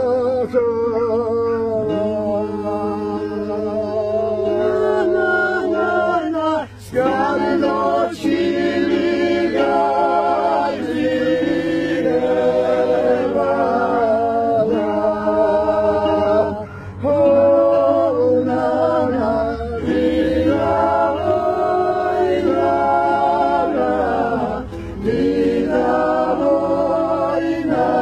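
A cappella choir singing a folk song in several voice parts, in long phrases broken by short pauses for breath.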